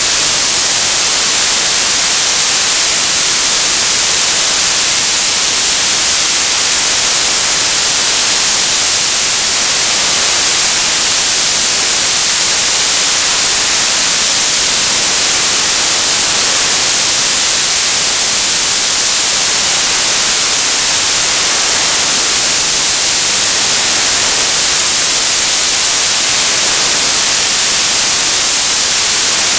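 Television static: a loud, steady hiss, strongest in the treble, with no change or break.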